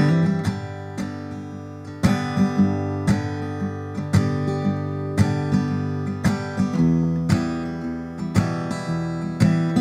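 Background music: an acoustic guitar plays a slow pattern of strummed and plucked chords.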